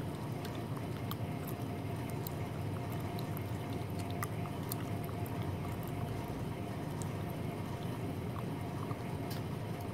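Steady indoor background hum and hiss, with a faint steady tone and a few scattered faint ticks.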